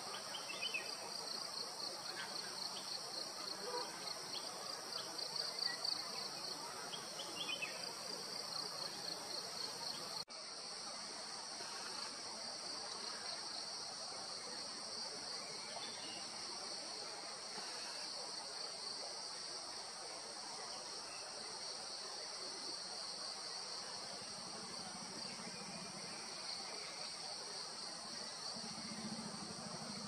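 Forest insect chorus: a high, steady buzzing of crickets or cicadas, pulsing quickly for the first third and changing abruptly about ten seconds in. A low hum comes in near the end.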